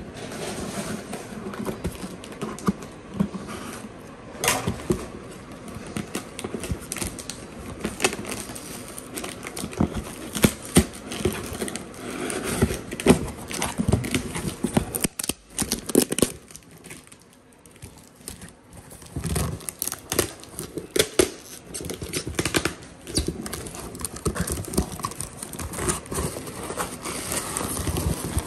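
Cardboard shipping box being handled and torn open by hand: irregular scraping, knocks and tearing of cardboard, with a brief lull a little past the middle.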